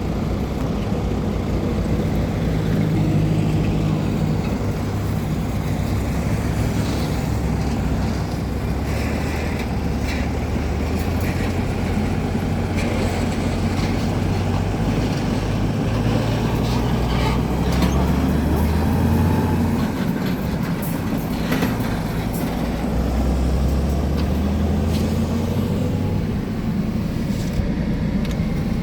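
Isuzu 6WG1 heavy truck diesel engine running under load. Its pitch climbs slowly and drops back a few times, as with revving or working up through the gears. A few brief sharp noises stand out over it.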